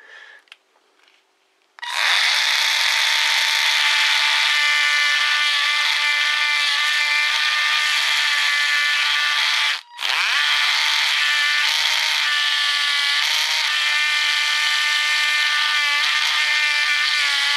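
Cordless rechargeable engraving pen with a tungsten-steel tip, switched on about two seconds in and buzzing steadily as its rapidly stroking tip is pressed against a box cutter. About halfway through it stops for a moment, then spins back up with a rising whine and runs on, its pitch wavering slightly under the pressure of the work.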